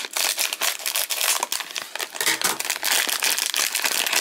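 Plastic surprise bag of hockey cards crinkling and crackling as it is handled and opened by hand.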